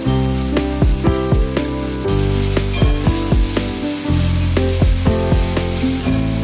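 Background music with a steady beat and bass notes, over the sizzle of pabda fish and potatoes cooking in mustard paste in a wok as a metal spatula stirs them.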